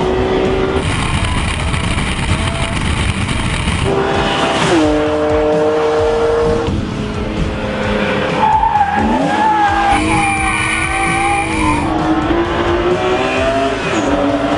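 BMW engine running hard at high revs, its pitch climbing and dropping sharply with the throttle, while the tyres squeal as the car slides.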